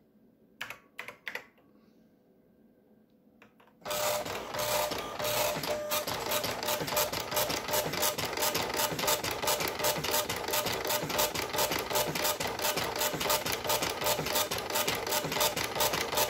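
A few sharp clicks about a second in. About four seconds in, a Brother M-1709 dot-matrix printer starts printing line after line: a loud, fast, evenly repeating buzz of the print head, which cuts off at the very end.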